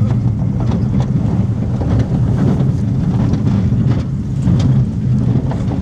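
Roller coaster train rumbling along its track at speed, with wind rushing over the microphone.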